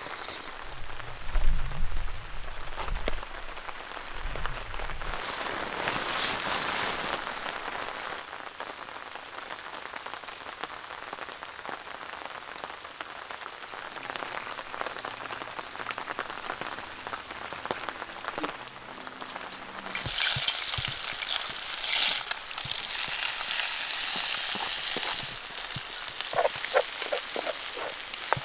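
Steady rain falling around a campfire, with a few handling knocks in the first seconds. About twenty seconds in, a loud frying sizzle starts suddenly as eggs go into a hot skillet over the fire, and it keeps on over the rain.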